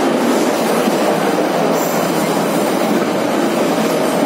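Moscow metro train running at speed through a tunnel, heard from inside the carriage: a steady, loud rush of wheel and running noise.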